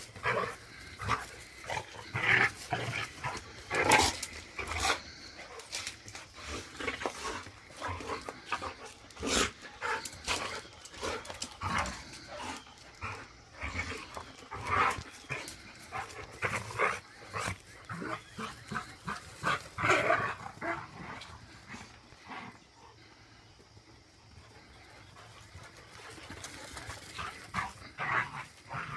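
A Rottweiler and a puppy play-wrestling: short, irregular bursts of dog growling and barking, quieter for a few seconds a little past the middle.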